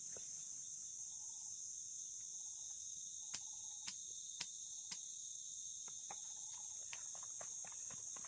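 Steady high-pitched chorus of crickets or similar insects, with four sharp knocks about half a second apart near the middle.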